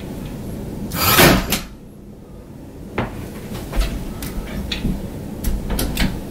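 Wooden peg rail being handled and fitted against a wall: a short noisy scraping burst about a second in, then scattered sharp clicks and knocks.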